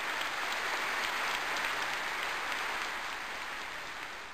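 Crowd applauding: steady clapping that swells in the first second or so and then slowly fades away.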